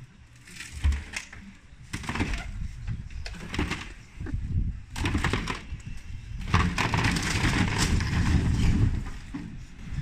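A wood-framed house wall being pulled down with a rope. The timber gives several sharp cracks and snaps, then from about six and a half seconds in there is a long crash and rumble as the wall comes down.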